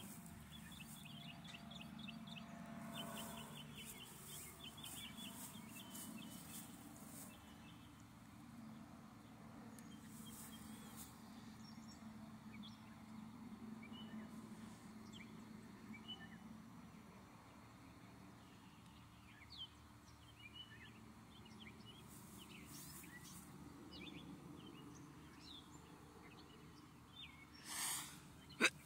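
Faint birdsong: rapid series of high chirps in the first few seconds, then scattered single chirps, over a low, steady distant drone. A brief louder noise sounds near the end.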